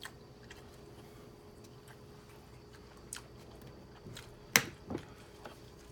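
Close-miked mouth sounds of eating: quiet chewing with a few short, sharp clicks, the loudest about four and a half seconds in.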